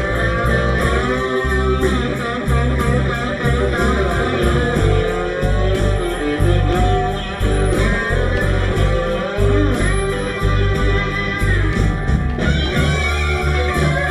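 Live blues band playing an instrumental stretch: electric guitar and bass guitar over drums keeping a steady beat.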